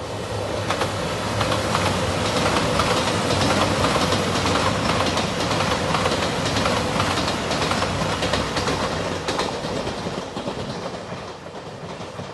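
JR Shikoku 2700 series limited express diesel train passing close by, its diesel engines running under a steady rumble and its wheels clacking over the rail joints. The sound builds over the first couple of seconds and fades near the end as the train moves away.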